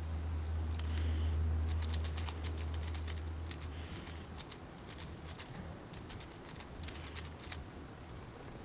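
Rubik's cube being turned at random to scramble it: quick, irregular clicks of the plastic layers snapping round. A steady low hum sits underneath for the first half and fades out about four seconds in.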